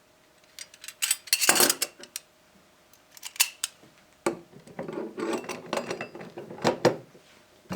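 Metallic clinks and clicks of small replacement screws and a screwdriver being handled as the screws are started into a footlocker's handle-and-hasp latch plate. The clicks are scattered at first, then come as a denser rattling run in the second half.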